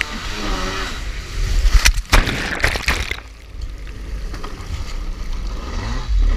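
Kawasaki 650SX stand-up jet ski's two-stroke engine running through rough sea, with a loud burst of spray and water crashing over the craft from about two seconds in. After that the engine fades and the sound turns duller, with a low rumble and water sloshing.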